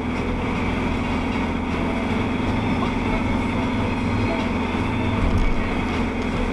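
Steady in-cabin drive noise of a vehicle at motorway speed on a wet, slushy road: a low engine and drivetrain drone under an even hiss of tyres on water.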